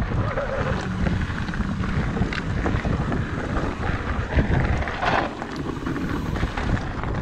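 Mountain bike riding fast down dirt singletrack: wind buffeting the microphone over a steady tyre rumble, with quick ticks and rattles from the bike over the trail and a brief louder scrape about five seconds in.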